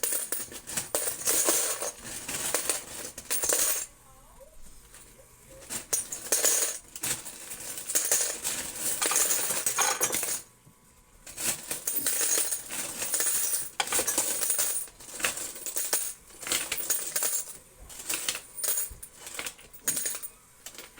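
Quarters clattering and jingling against one another in repeated bursts as they are handled in a coin pusher's catch tray, with short pauses about four and about ten seconds in.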